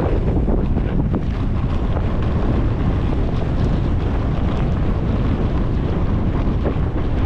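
Steady rumble of wind buffeting the microphone of a camera worn by a downhill skier, with the hiss of skis sliding on soft snow underneath.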